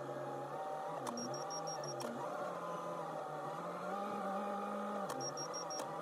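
Backhoe loader's diesel engine running under the operator's seat, its pitch rising about four seconds in and dropping back a second later as it is throttled. A rapid, high-pitched beeping sounds in two short spells.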